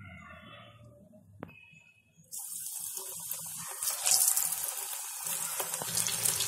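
Onion bhajiya batter dropped into hot oil, sizzling loudly as it deep-fries. The sizzle starts suddenly about two seconds in and is loudest around four seconds in. Before that, a single fritter fries more quietly, with a couple of sharp clicks.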